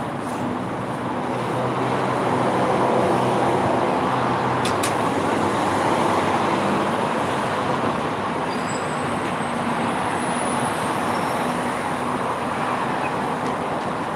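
Road traffic on a city street: a steady noise of vehicles going by, swelling a few seconds in as one passes, with a low hum underneath. A brief click comes about five seconds in.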